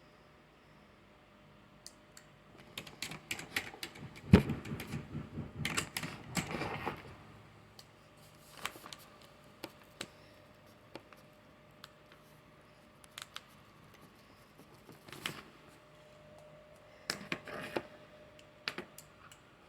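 Irregular clicking and knocking in a small room, in clusters, with one loud sharp bang about four seconds in; an unexplained banging noise of unknown origin.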